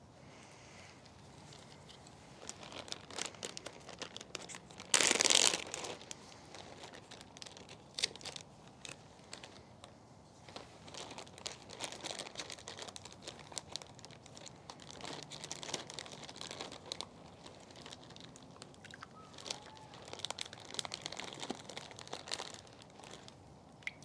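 Clear plastic zip-top bag crinkling as gloved hands work inside it, an irregular run of crackles with one louder crinkle about five seconds in.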